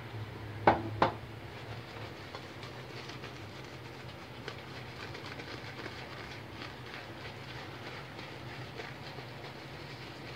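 Surrey shaving brush swirling Williams soap lather on a bearded face: a steady scratchy brushing with many faint quick ticks from the bristles. Two sharp knocks about a second in.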